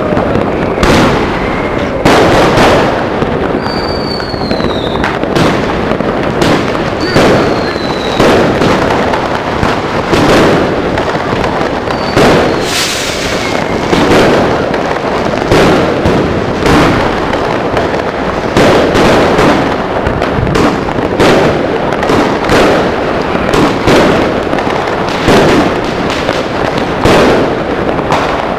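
A professional fireworks display heard at close range from the firing site: aerial shells bursting about once a second with no let-up, with crackle between the reports. A few short whistles falling in pitch come in the first half.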